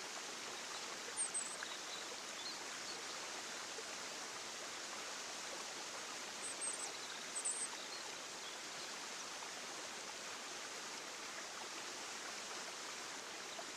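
Outdoor nature ambience: a steady rushing hiss like running water or wind, with a few short high bird chirps about a second in and again twice around seven seconds in.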